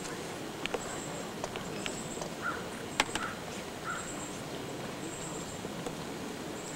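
Outdoor ambience: insects calling in short, repeated high-pitched bursts about once a second, with scattered sharp clicks, one much louder about three seconds in.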